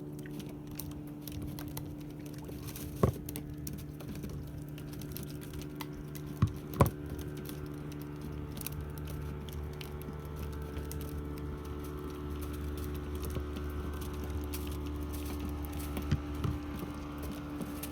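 A boat engine running steadily at low revs, with a few sharp knocks on the boat and light patter over it.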